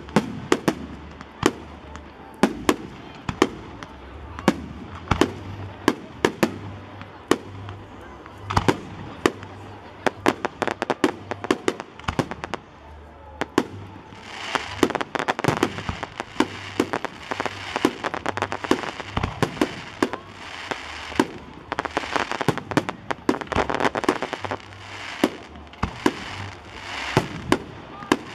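Aerial fireworks going off: a rapid series of sharp shell bursts and bangs, joined about halfway through by dense crackling from crackle-star bursts.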